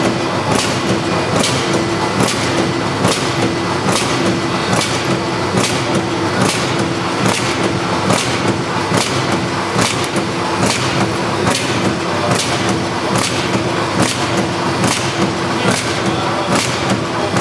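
Automatic powder filling and packing machine running in its filling cycle, with a sharp knock about every 0.8 seconds, in step with a pack speed of around 71 packs a minute, over a steady mechanical hum.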